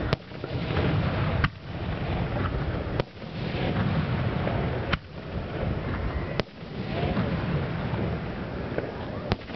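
Aerial firework shells bursting: six sharp bangs about one and a half seconds apart, with a low rumble between them.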